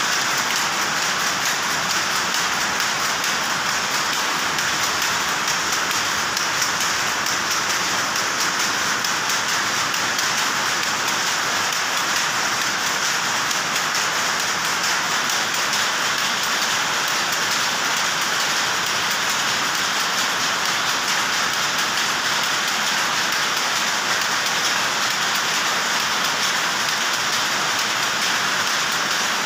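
Power looms running: a dense, steady clatter of many rapid overlapping beats with no let-up.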